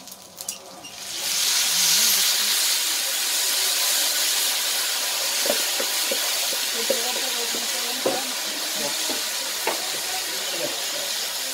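Wet chopped tomato and peppers dropped into hot fat on a wide iron griddle pan: a loud sizzle bursts in about a second in and settles into a steady hiss of steam. Short knocks and scrapes of a wooden spoon stirring the pan come through the hiss in the middle of the stretch.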